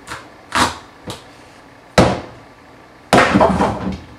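Kitchen knife being forced through a raw spaghetti squash on a cutting board. There are a few light knocks, a sharp thud about two seconds in, then almost a second of rough crunching and scraping as the squash splits open.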